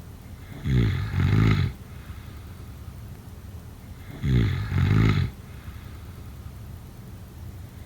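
A sleeping person snoring, two snores about three and a half seconds apart. Each lasts about a second and comes in two parts.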